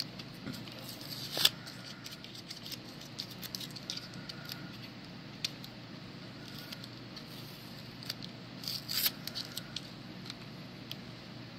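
Trading cards and their plastic holders being handled: scattered light clicks and rustles, with a louder click about a second and a half in and a quick run of clicks near the end.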